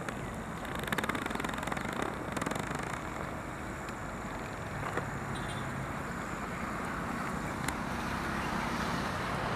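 A motor vehicle engine running steadily under road and wind noise, with a low engine hum coming up about halfway through.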